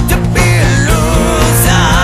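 Rock song playing: a full band with guitar, a steady bass line and drums with cymbal hits, and a wavering melody line over it.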